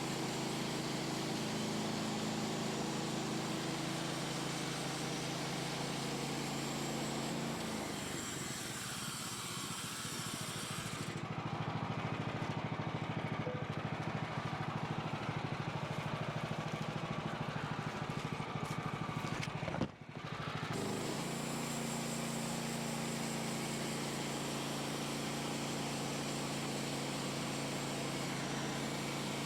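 Small gas engine of a bandsaw sawmill running at a steady speed. The sound changes for a stretch in the middle, with a brief drop just before it settles back to the same steady note.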